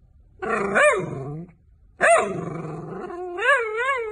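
A small dog vocalizing in drawn-out, howl-like calls: a short call that rises and falls, then after a brief pause a longer one whose pitch wobbles up and down toward the end.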